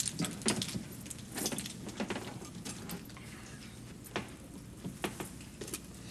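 Metal jewellery jangling and clinking in short, scattered bursts, with small knocks as a wooden jewellery box is lifted and opened.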